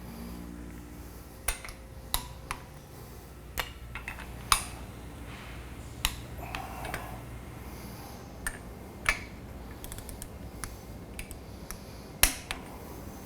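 Sharp metallic clicks and clinks at irregular intervals, several seconds apart at times, from a wrench working the flange bolts of a butterfly valve in a star pattern. The bolts are at the first stage of torque. A steady low hum runs underneath.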